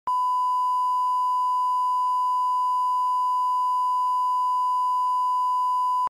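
A steady electronic test tone: one pure, unwavering beep at constant level, with faint ticks about once a second, cutting off abruptly at the end.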